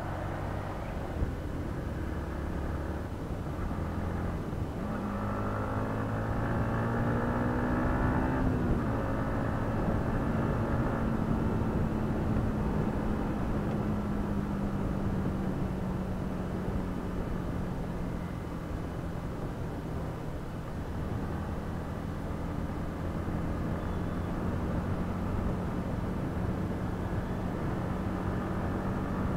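Yamaha MT-15's 155 cc single-cylinder engine pulling in fifth gear, heard from the rider's seat. About five seconds in its pitch climbs for a few seconds as the bike accelerates, then it holds a steady note at cruising speed, with a constant rush of wind and road noise underneath.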